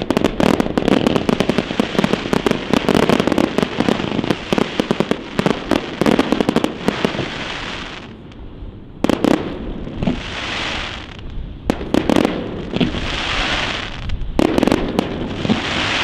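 Fireworks display: a dense barrage of bangs and crackling that eases off about eight seconds in, then shorter volleys of bangs and crackle every two to three seconds.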